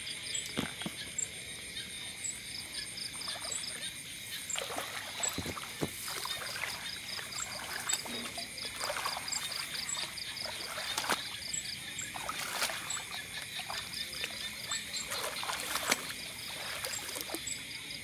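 Night chorus of insects chirping steadily, with one chirp repeating about twice a second. Over it come irregular rustles, clacks and knocks from thin bamboo fishing rods and their lines being handled among grass.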